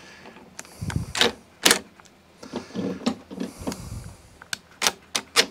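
A cordless impact driver briefly runs the nut on a lawn mower's drive wheel, mixed with clicks and knocks of the tool and the plastic wheel being handled.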